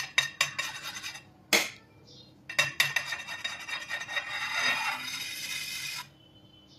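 Metal palette knife scraping and rubbing against whipped cream and the metal cake turntable as the cream is smoothed around the cake's side. A few sharp clicks and clinks come first, then about three seconds of continuous scraping that stops short near the end.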